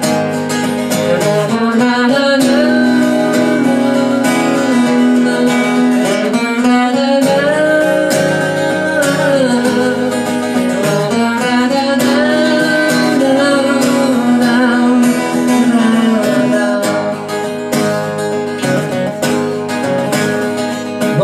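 Acoustic guitar strummed in an instrumental break of a song, with a long, held melody line gliding over it.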